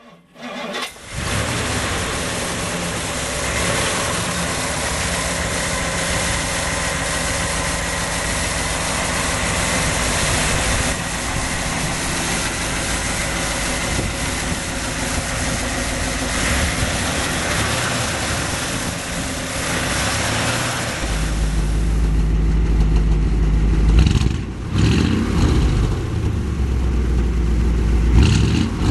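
1958 Ford Fairlane Skyliner engine running at a steady idle, heard from the open engine bay. About two-thirds of the way through it is heard at the rear of the car, deeper and louder, with a few rises and falls near the end.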